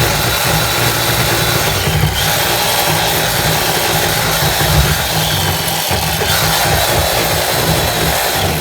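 Handheld power tool running steadily as it cuts wood from the bottom edge of a sticking garden gate.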